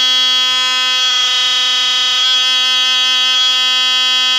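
Worn Sonicare DiamondClean electric toothbrush handle running with a steady, loud, high-pitched buzz. The tone shifts a couple of times. The brush head hardly moves anymore, a buzz the owner takes for the sign of a dying handle.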